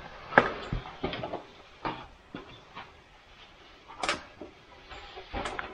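Scattered knocks and scrapes of a caver clambering through a tight rock passage: boots and gear bumping and rubbing against the rock. The loudest knock comes about half a second in, with another clear one about four seconds in.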